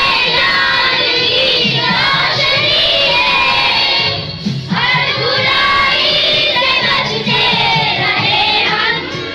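A group of young boys singing together, with a short break about four seconds in.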